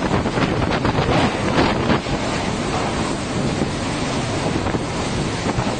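Strong wind blowing hard against the microphone: a dense, steady rush of noise, gustier with brief buffeting in the first two seconds.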